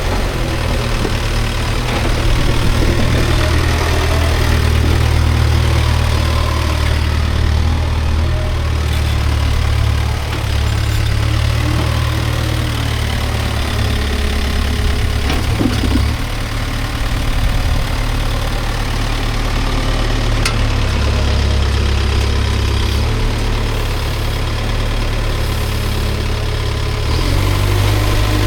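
Diesel engine of a CASE 770EX backhoe loader running steadily while working, a deep rumble that eases briefly a couple of times.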